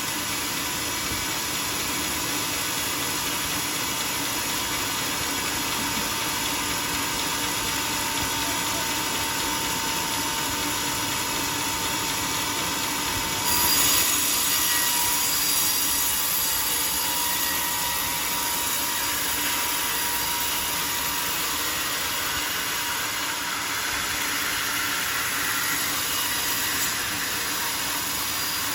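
Sawmill saw cutting through a teak log: a steady high, hissing machine noise with a thin steady whine, jumping louder and brighter about halfway through, then easing back.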